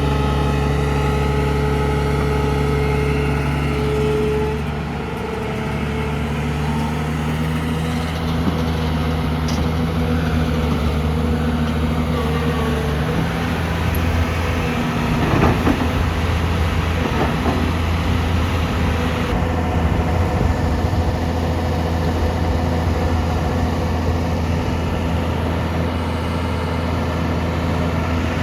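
Diesel engine of a JCB 3DX backhoe loader running steadily as the machine works. Its note dips briefly about five seconds in and shifts again near the middle, where a few knocks are heard.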